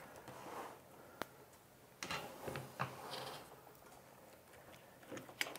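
Faint clicks and wire rustling as cable connectors are pulled from a 3D printer's control board: a sharp click about a second in, a cluster of small clicks around two to three seconds, and two more near the end.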